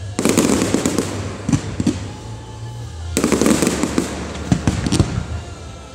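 Fireworks display: two volleys of rapid, dense bangs about three seconds apart, each lasting a second or so, with scattered single reports between them.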